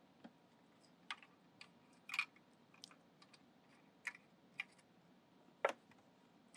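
Faint, irregular light clicks and taps from hands handling wiring and parts inside a carpet extractor's opened housing.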